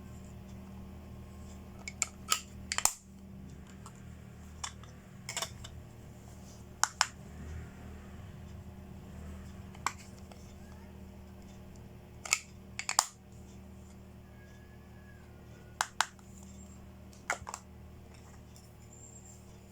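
Small plastic toy makeup pieces being handled, opened and set down: sharp clicks and taps, singly or in quick groups of two or three, at irregular intervals every second or few.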